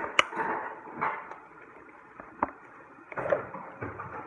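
Handling noise of slime being mixed in a bowl close to the mic: a few sharp knocks of the spoon and bowl, with rustling, scraping noise between them.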